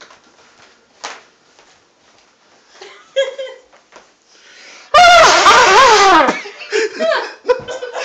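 A trumpet blasted very loud for just over a second about five seconds in, its pitch wobbling and sliding down, followed by people laughing.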